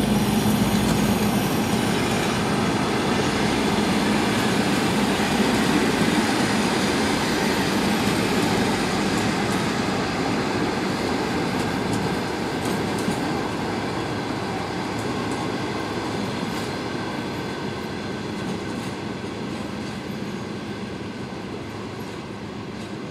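Passenger train coaches rolling past at low speed as the train departs, the rolling rumble fading slowly as the end of the train moves away.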